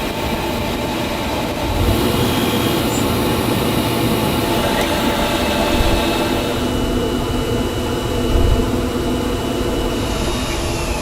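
Tornos Swiss Nano CNC Swiss-type lathe running, a steady machine noise with several thin whining tones. A brighter hiss rises over it about two seconds in and fades a few seconds later.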